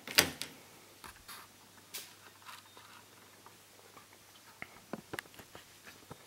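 A mains plug pushed into a power strip socket with one sharp clack just after the start, then a few faint scattered clicks.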